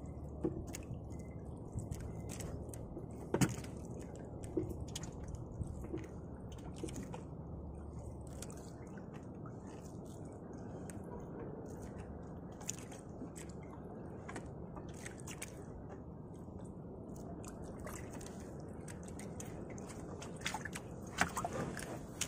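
Water dripping and splashing as a fishing longline is hauled in by hand over a small boat's side, with scattered small clicks and knocks, one sharper knock a few seconds in. Underneath runs a steady low wash of wind and choppy sea.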